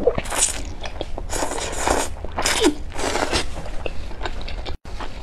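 A person slurping thick sauce-coated wheat noodles (sweet water noodles) in about four hissing pulls, then chewing a full mouthful.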